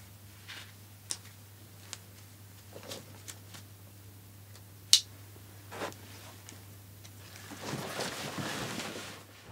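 Hard plastic backpack buckles and nylon webbing being handled: a few scattered clicks, one sharp loud click about halfway through, then rustling of the backpack's fabric near the end.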